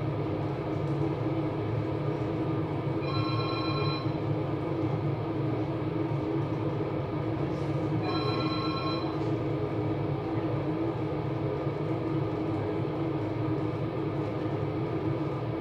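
Steady low rumble of a vehicle in motion, with a short multi-tone electronic chime sounding twice, about five seconds apart.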